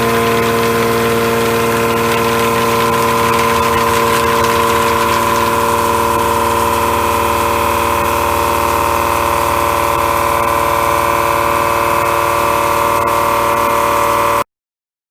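Ceratizit MaxiMill A491 indexable milling cutter taking a steady cut in A36 steel, a loud, even machining hum made of several steady tones over a noisy hiss. It stops abruptly near the end.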